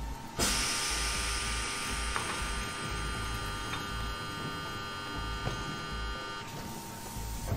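A plastic sheet butt welding machine's motor running with a whirring hum that starts suddenly about half a second in and cuts off about six seconds later.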